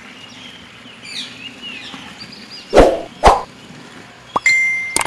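Birds chirping. About three seconds in come two loud, short bursts half a second apart. Near the end a bright, ringing bell-like chime starts.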